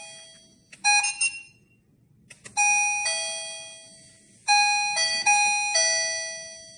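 Wireless doorbell receiver (Welcome KR-M522) playing its electronic chime tune, set off by the PIR motion sensor detecting someone. There is a short broken fragment about a second in, then a phrase of bell-like notes stepping down in pitch, each ringing and fading away.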